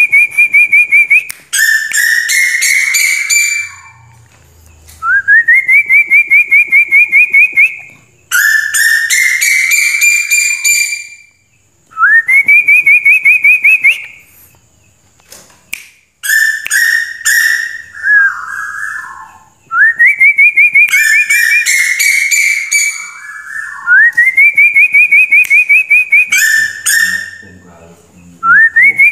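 Female tuwu bird's whistled lure call: a rising slur that runs straight into a fast trill of repeated notes, about eight a second, given again every few seconds, with higher trilled notes overlapping it.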